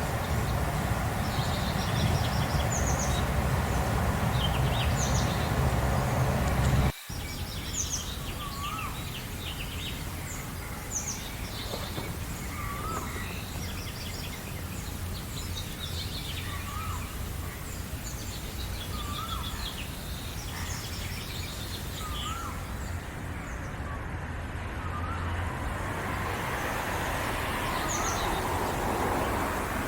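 Several birds chirping and singing, one of them repeating a short hooked whistle every second or two. Under them runs a steady low rumble that is loud for the first seven seconds, then drops suddenly to a softer background hiss.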